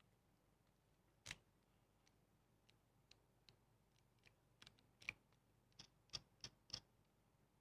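A series of small, sharp clicks from hard plastic parts being handled. A few are scattered through the first seconds, then they come more often, ending in three quick clicks about a third of a second apart.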